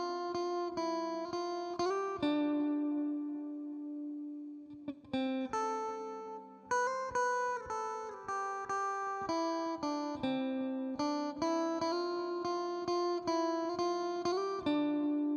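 Clean electric guitar melody from an LTD M-200FM with its pickups coil-split, played through an Amplitube 4 Fender Twin Reverb amp simulation. A long note rings out and fades about two seconds in, then the melody picks up again around five seconds in and carries on.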